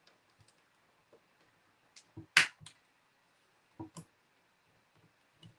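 Light taps and knocks from working with a paintbrush over a canvas on a tabletop in a quiet room: a few close taps about two seconds in, the sharpest and loudest just after, then two softer knocks near four seconds and a faint one near the end.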